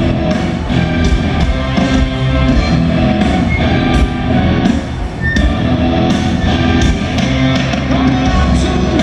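Live rock band playing loudly, with drum kit, electric guitars and bass.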